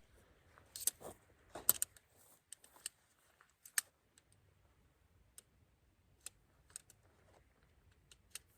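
Irregular small sharp clicks and taps, as of small objects being handled, over a quiet background; the loudest come in the first four seconds, with sparser, fainter ones after.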